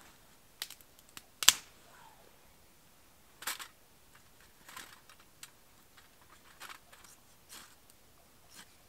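Irregular sharp clicks, knocks and short scrapes of hands working at a small metal firebox wood stove while getting a fire going. About eight separate sounds, the loudest a sharp click about one and a half seconds in.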